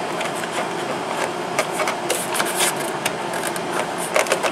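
Clicks, taps and rubbing from a car's plastic door trim panel and its latch-cable clip being handled and fitted, over a steady hiss.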